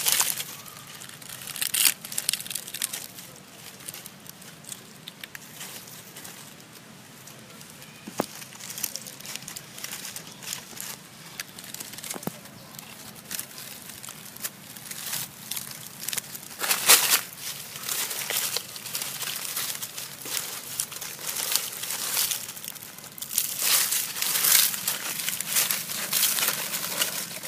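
Irregular rustling and crinkling crackles, coming in clumps and loudest about 17 seconds in and again in a dense run near the end.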